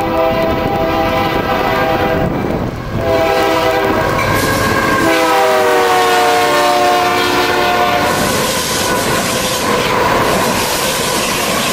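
Air horn of Union Pacific diesel freight locomotives sounding for a grade crossing: a long blast, a short one, then a long one whose pitch drops about five seconds in as the lead locomotive passes. The horn then gives way to the loud rumble of the locomotives and the clatter of wheels on the rails.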